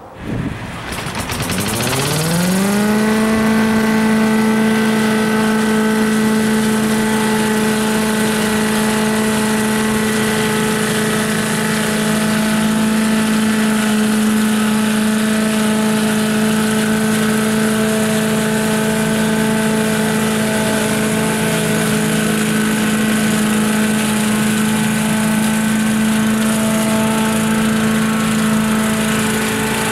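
Gas-powered walk-behind leaf vacuum starting up. Its engine and fan spin up with a rising pitch over the first two or three seconds, then run at a steady speed.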